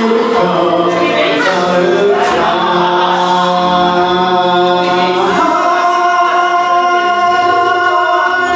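A man singing into a handheld microphone over backing music, holding a long note through the second half.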